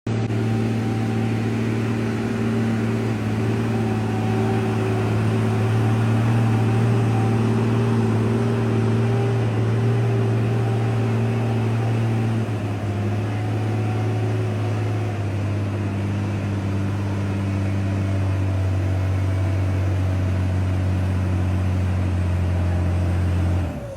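A truck engine running steadily under load. Its note drops a little about halfway through and again a few seconds later, then falls away with a dropping pitch near the end.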